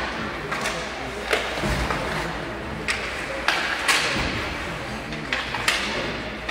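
Ice hockey play in an arena: several sharp clacks of sticks and puck against each other and the boards, over a steady hum of the rink with voices in the background.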